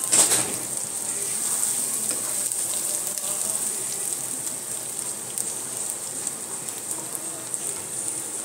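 Sliced onions and spice paste sizzling in hot oil in a wok, with a wooden spatula stirring through it; one louder knock about a quarter second in.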